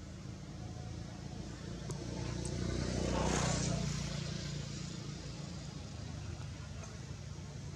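A motor vehicle passing by, its engine and tyre noise swelling to a peak about three seconds in and then fading away.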